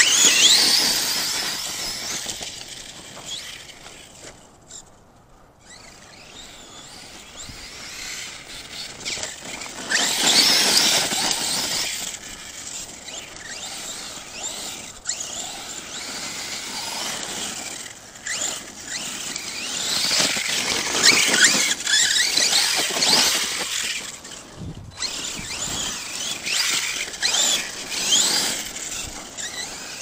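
Brushless electric motor of an ARRMA Kraton 6S RC monster truck whining, its pitch rising and falling with the throttle in repeated surges. The loudest surges come at the very start and again around ten and twenty seconds in, fading between them as the truck drives farther off.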